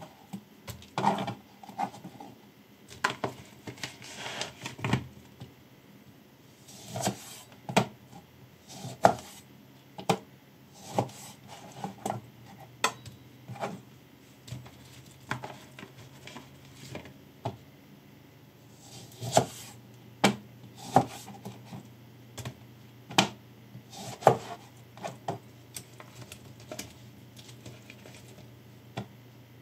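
Chef's knife cutting through lemons and knocking down onto a plastic cutting board, in irregular single chops with gaps between them, some with a short scraping sound.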